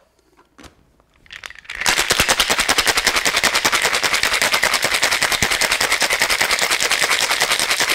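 Ice rattling hard inside a copper cocktail shaker being shaken, a rapid, even clatter that starts about two seconds in, after a few light clicks as the shaker is closed. The drink of vodka, lemon juice and raspberry syrup is being shaken until well chilled.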